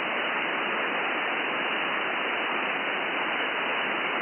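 Steady static hiss from a software-defined radio receiver tuned to the 11-metre CB band, with no signal coming through. The hiss has no highs, cut off by the receiver's narrow upper-sideband filter.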